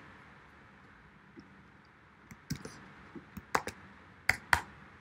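Computer keyboard typing: quiet at first, then about ten scattered, sharp key clicks in the second half as a line of code is typed.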